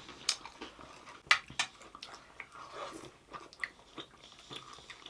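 Close-up eating sounds: a person chewing and biting food, with irregular sharp, crunchy clicks.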